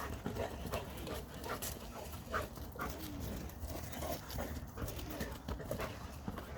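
A dog panting in a run of quick, irregular breaths.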